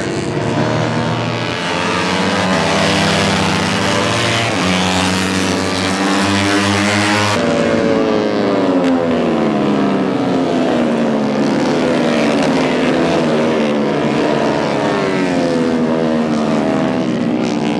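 Yamaha race motorcycle engines revving hard as the bikes run through corners, the pitch climbing and dropping with throttle and gear changes. About seven seconds in the sound changes abruptly and another run of engines rising and falling in pitch takes over.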